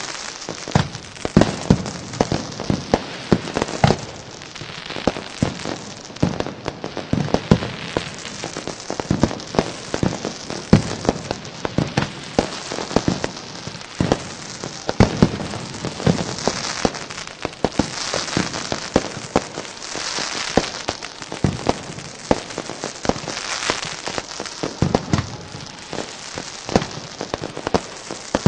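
Fireworks and firecrackers going off in quick, irregular succession: many sharp bangs and pops over a steady crackling hiss.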